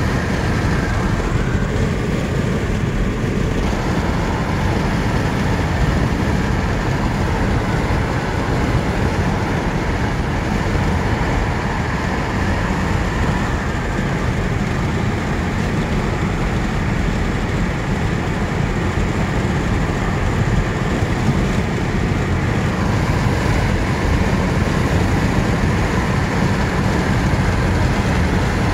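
Steady road and wind noise of a car travelling at highway speed, heard from inside the car, with a strong low rumble and no distinct events.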